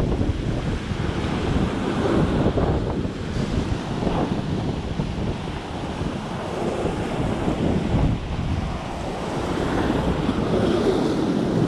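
Rough surf crashing and washing over shoreline rocks, with strong wind buffeting the microphone.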